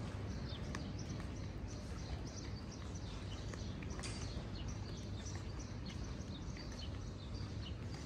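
Outdoor street ambience: small birds chirping many times in short, scattered calls over a steady low rumble.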